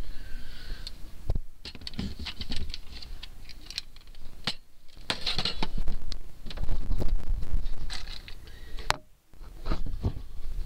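Hands rummaging through things on cluttered shelves: irregular rustling, clicking and clattering as objects are picked up and shifted about.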